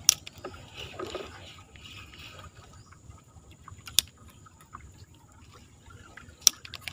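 Faint water lapping and trickling around a small wooden boat, broken by a few sharp clicks: one at the start, one about four seconds in and one near the end.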